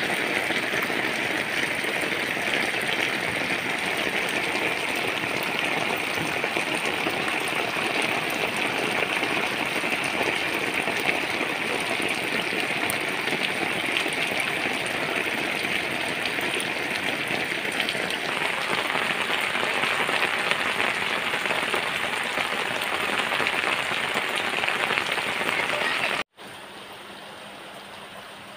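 Heavy rain pelting a flat concrete roof covered in standing water, a dense, steady hiss of splashing drops. About 26 seconds in it cuts to a quieter, more even rain sound.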